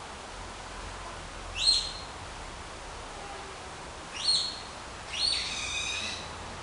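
Three high, squeaky calls from an unidentified night animal, each sweeping sharply upward in pitch; the third is longer and wavering, lasting about a second. A steady hiss runs underneath.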